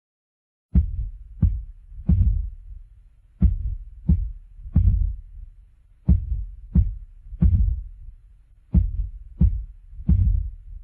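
Deep bass-drum hits in groups of three, each group a couple of seconds apart, beginning after a short silence: the opening of a jerk rap beat.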